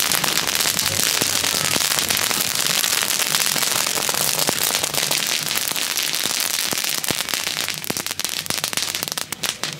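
A pile of Category F1 youth fireworks burning at once: dense, continuous crackling with many small pops. About seven seconds in it thins out to scattered sharp cracks.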